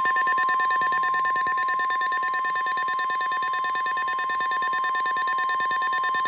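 NOAA Weather Radio warning alarm: a loud, steady single tone of about 1 kHz, with a rapid pulsing buzz of higher tones over it. It is the signal that a severe weather warning broadcast from the National Weather Service follows.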